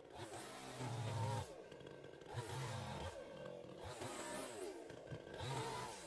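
Two-stroke chainsaw engine revving up and dropping back several times in quick succession, its pitch rising and falling.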